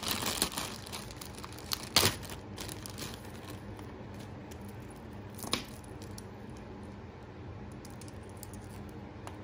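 Small handling noises as a wrapped jewelry package is opened: a few light clicks at first, a sharp click about two seconds in and another about five and a half seconds in, with faint steady hum between.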